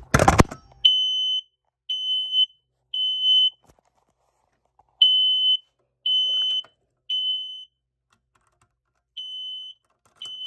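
Smoke alarm sounding its alarm in the temporal-three pattern: a high, steady beep three times, a pause, then three again, starting over near the end. Two loud handling clicks come just before the first beep.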